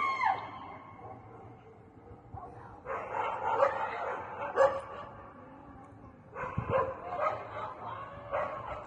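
Distant loud cries in two bouts of about two seconds each, with short sharp shrieks inside each bout: the first starts about three seconds in and the second just after six seconds.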